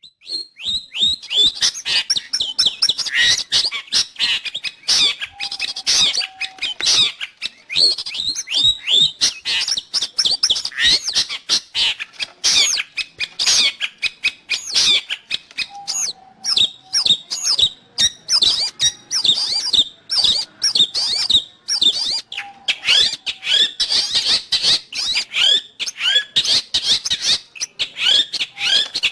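Long-tailed shrike (cendet) singing a fast, continuous chattering song of quick chirps and sweeping notes, with a short low whistle dropped in now and then.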